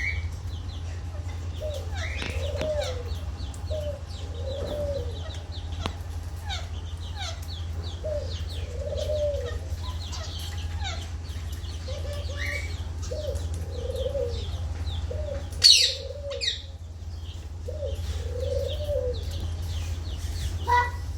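Aviary birds calling together: a constant chatter of small high chirps over a repeated series of lower arched calls, with one loud sharp burst about three-quarters of the way through, all over a steady low hum.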